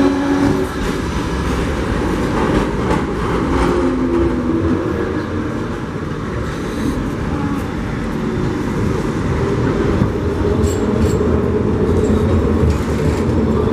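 Streetcar running along the street, a steady loud rumble with a faint motor whine and a few light clicks near the end.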